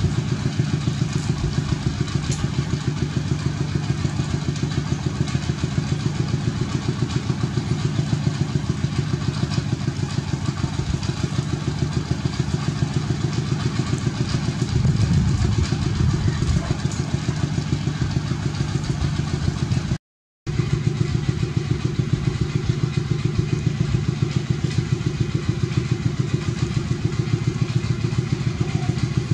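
An engine running steadily at an even idle, pulsing about four times a second. It cuts out completely for a moment about twenty seconds in, then carries on unchanged.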